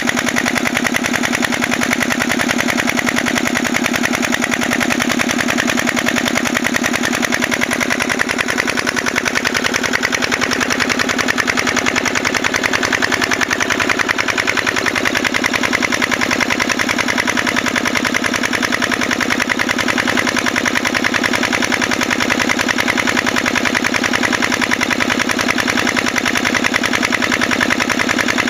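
Petter PH1 single-cylinder air-cooled diesel stationary engine running steadily, with a rapid, even firing beat.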